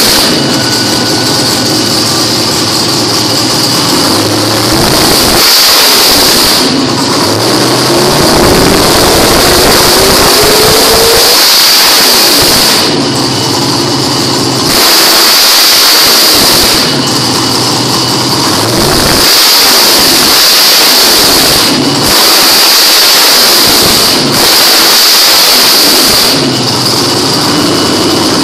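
Drag-race car's engine being revved hard over and over, each rev rising and dropping back every few seconds. It is loud enough that onlookers cover their ears.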